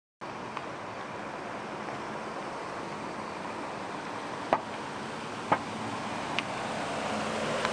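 Ford Raptor pickup rolling slowly closer at low speed: a steady low rush of engine and tyres that grows slightly louder, with three sharp clicks about a second apart in the middle.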